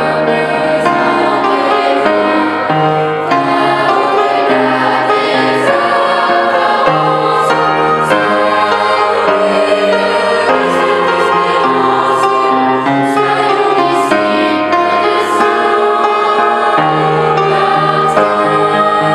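Children's choir singing a hymn in three-part harmony, over steady low accompanying notes.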